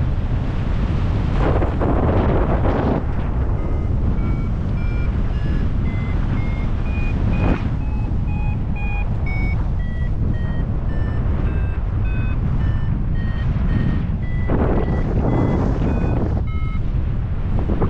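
Paragliding variometer beeping its climb tone: short electronic beeps, about three a second, wandering up and down in pitch as the climb rate changes, the sign of rising air. Steady wind noise on the microphone runs underneath, with stronger gusts about a second and a half in and again near the end.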